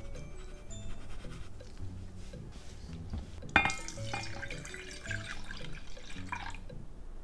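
Soy milk poured from a glass measuring cup into a stainless steel saucepan: a liquid pour that starts with a sharp splash about three and a half seconds in and runs for about three seconds.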